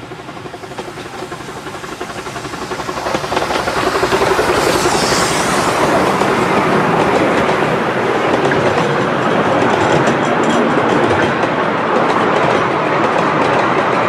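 Miniature 2-4-2 steam locomotive "Sandy River" running closer and closer, then passing with a brief hiss about five seconds in. Its train of passenger carriages follows, wheels clattering steadily over the rail joints.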